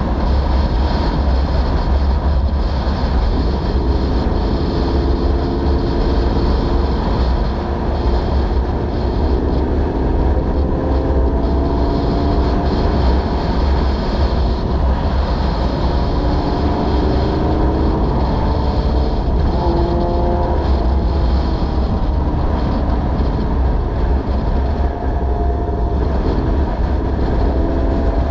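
Heavy wind rush on a motorcycle-mounted camera at road speed. Beneath it, the 5th-generation Honda VFR800Fi's V4 engine runs, its note rising and falling several times with throttle and gear changes.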